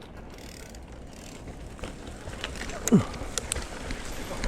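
Mountain bike being ridden on a dirt trail: a steady rumble of tyres and wind, with scattered sharp clicks and rattles from the bike. About three seconds in there is a short sound that falls quickly in pitch.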